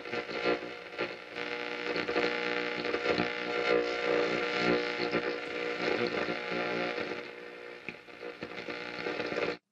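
Old valve radio giving out a distorted mix of hum and static, cutting off suddenly near the end.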